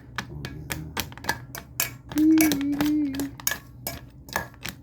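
Spoon stirring dry dog food in a bowl, with irregular sharp clicks about three to four times a second as the kibble and spoon knock against the bowl. About two seconds in, a short held low hum lasts about a second and is the loudest sound.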